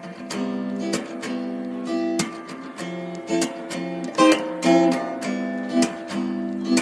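Acoustic guitar music: strummed chords mixed with plucked notes at a lively rhythm.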